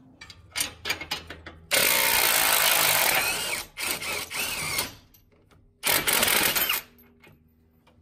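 Ridgid cordless impact wrench hammering on a nut in two bursts, a long one of about three seconds and a short one of under a second, after a few light clicks.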